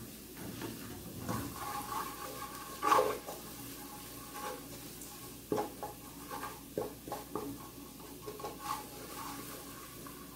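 Wooden spoon stirring and scraping in an aluminium pan, knocking against the metal now and then as a bouillon cube is worked into garlic frying gently in olive oil, with faint sizzling underneath. The loudest knock comes about three seconds in.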